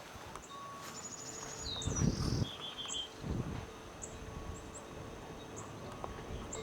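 Small birds calling: a quick high trill, a falling note and a buzzy call, with short high chirps repeating throughout. A couple of dull low thumps come about two and three seconds in.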